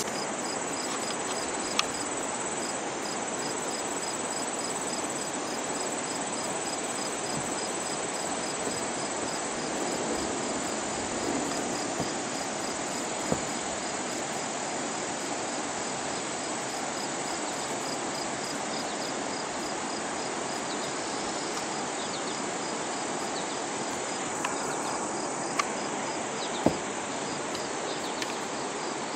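Insects singing steadily in summer vegetation: a continuous high-pitched drone with an evenly pulsed chirp just below it, over a steady rushing noise. A few small clicks, the sharpest near the end.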